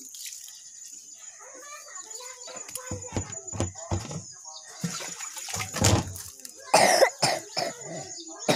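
A person coughing in short, loud bursts about two-thirds of the way through, mixed with knocks and thuds of a handheld phone being moved around.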